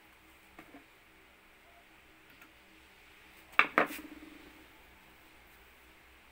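A few faint taps, then two sharp metallic clinks in quick succession about three and a half seconds in, ringing briefly.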